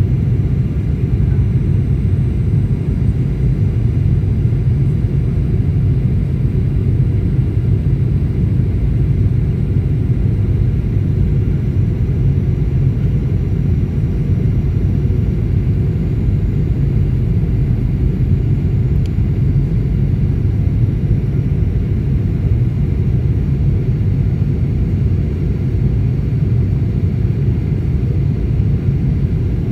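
Passenger aircraft cabin noise during the landing approach: a steady low rumble that does not change.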